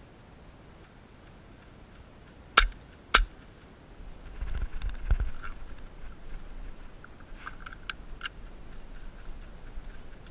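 Two sharp airsoft shots about half a second apart, then low rumbling handling noise and a few faint clicks.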